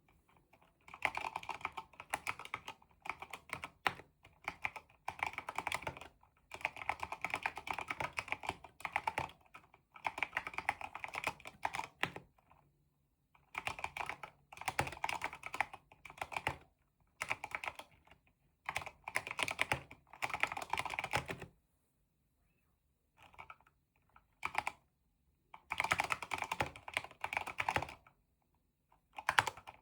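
Keychron K8 wireless mechanical keyboard with red linear switches and swapped keycaps, typed on in quick runs of keystrokes with short pauses between them and a longer pause about three-quarters of the way through.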